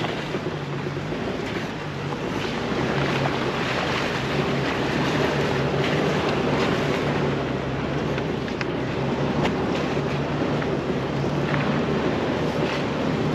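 Jeep Wrangler TJ engine running steadily at low speed as it crawls along a rough off-road trail, with scattered clicks and knocks over a steady rushing noise.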